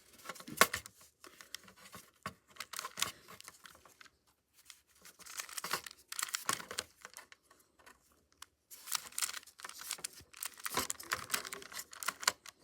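Plastic 3x3 Rubik's cube being turned by hand, its layers clicking and scraping in quick flurries of twists with short pauses between them while the cross is built.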